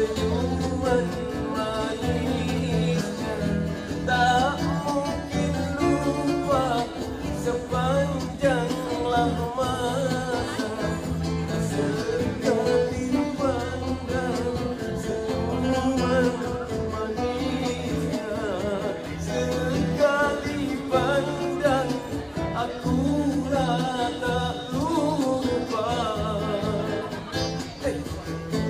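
A man singing into a microphone with a live band of acoustic guitars accompanying him.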